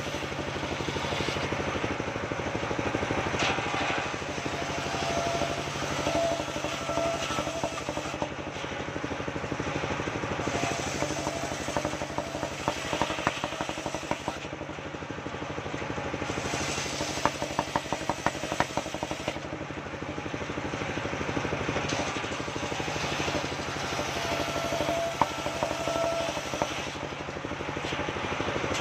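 Engine-driven circular saw of a mobile sawmill ripping waru (sea hibiscus) planks. The engine runs steadily while the blade cuts through the wood in several passes lasting a few seconds each, with short breaks between them.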